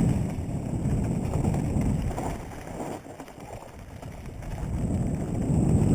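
Wind rushing over the microphone of a camera on a mountain bike moving along a dirt trail, mixed with the rumble of the ride. It eases about three seconds in and builds again near the end.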